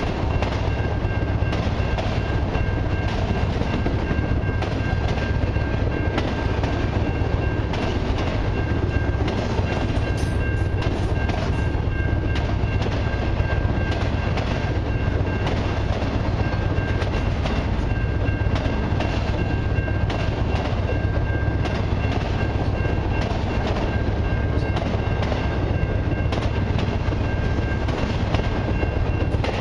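Freight train of autorack cars rolling past close by: a steady low rumble of steel wheels on rail with a dense, rapid clatter of wheels over the rail joints, and a thin steady high whine over it.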